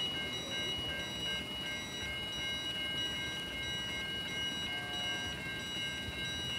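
Level crossing warning bell sounding steadily, a high electronic ringing held on a few fixed pitches, over a low rumble. It is going off with no train approaching, which the onlooker takes for a crossing malfunction.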